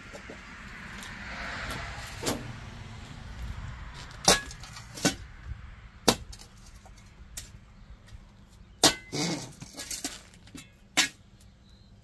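Long-handled shovel digging into soil: a soft scraping in the first few seconds, then a string of sharp scrapes and knocks as the blade is driven in and levered, the loudest about four and nine seconds in.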